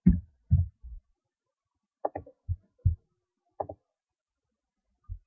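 Handling on a tabletop: scattered short, dull thumps, a cluster in the first second, several more a couple of seconds in and one near the end.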